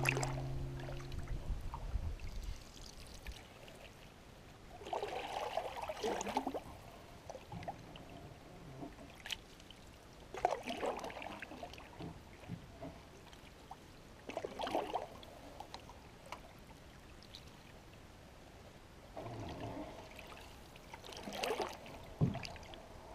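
Canoe paddle strokes in calm creek water: five splashing strokes with trickling drips, one about every four to five seconds. A music track fades out in the first second or two.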